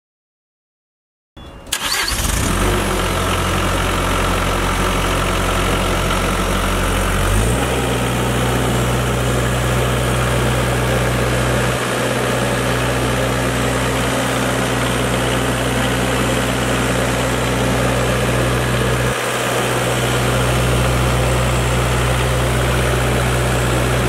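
Diesel engine of a CAT 216B3 skid steer starting about a second in, catching quickly and running steadily. A third of the way through its speed steps up a little, and it holds that steady speed from then on.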